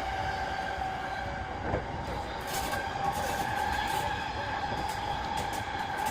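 E233-3000 series electric commuter train running between stations, heard from inside the car: a steady whine over the rumble of the wheels on the rails, with a few light clicks.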